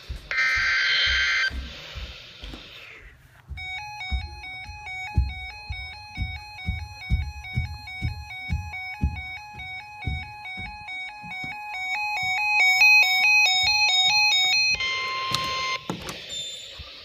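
About a second of screeching data tones, like an Emergency Alert System header burst. Then comes an electronic ringtone-like melody of alternating beeps over a beat for about eleven seconds, and near the end another second-long burst of screeching data tones.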